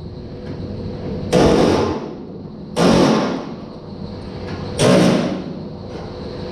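Three short bursts of a hand-held power tool on the car's sheet-metal quarter panel, each about half a second, starting sharply and trailing off, with gaps of one to two seconds between them.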